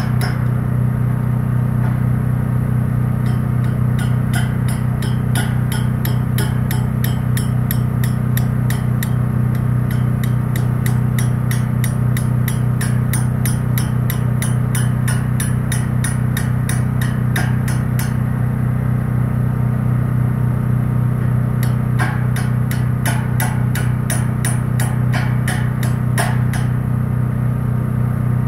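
An engine idling steadily, with a fast, regular run of sharp metal-on-metal hammer taps at the base of a light pole. The tapping stops about 18 seconds in and picks up again from about 22 to 26 seconds.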